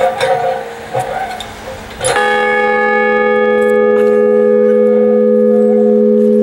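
A large 1912 ship's signal bell is struck once about two seconds in. It then rings on in a long, loud hum with many steady overtones and no audible fading.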